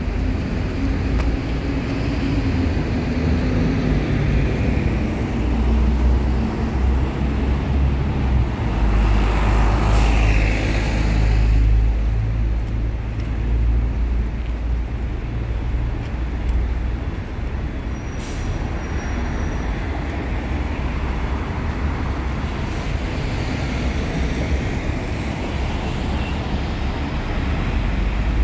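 Road traffic on a city street: a continuous low rumble of passing vehicles, swelling to its loudest about a third of the way through.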